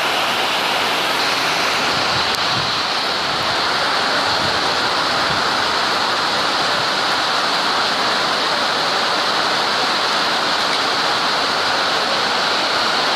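Heavy monsoon rain pouring down, an even, unbroken hiss.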